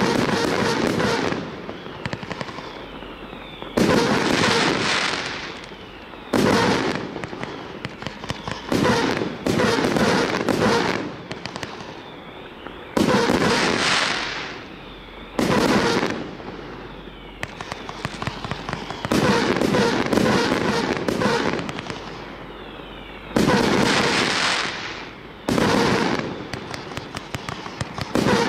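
A 25 mm, 64-shot consumer firework cake fires shot after shot, one every two to three seconds. Each shot is a sudden launch and break, followed by dense crackling that fades before the next.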